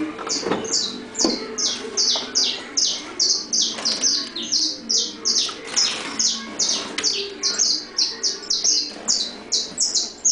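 Saffron finch (canário-da-terra) singing: a fast, unbroken string of sharp, high chirps, about three or four a second, each a quick downward slur.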